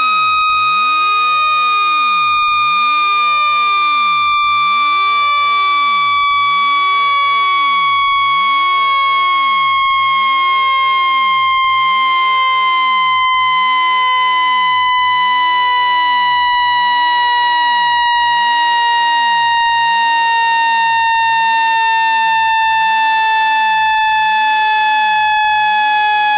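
Speaker-cleaning tone: a loud, buzzy electronic tone full of overtones, sliding slowly and evenly lower in pitch, made to vibrate dust and water out of a phone speaker.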